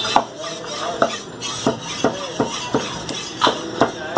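Meat cleaver chopping beef on a wooden tree-stump block: about nine sharp chops at an uneven pace of two or three a second.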